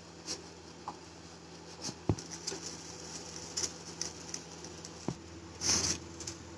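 Wooden spatula scraping and tapping against a nonstick frying pan as toasts are slid out, with scattered light knocks, a sharper knock about two seconds in and a short scrape near the end as a toast is set down on a plate. A steady low hum runs underneath.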